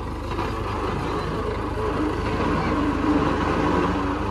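Farmtrac 6055 tractor's diesel engine running hard under load as the straw-laden tractor reverses up a rough dirt track, growing slightly louder toward the end.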